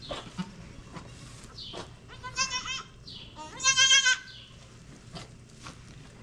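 Newborn goat kid bleating twice, high wavering cries, the second louder and longer. A few faint rustles around them.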